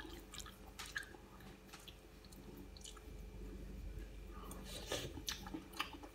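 Quiet eating sounds: a few faint soft clicks and wet squishes, more of them about five seconds in, over a steady low hum.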